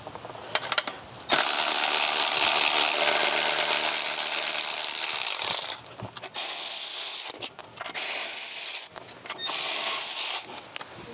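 Cordless electric ratchet running, spinning lug nuts off a car wheel: one long run of about four seconds, then three short runs of about a second each.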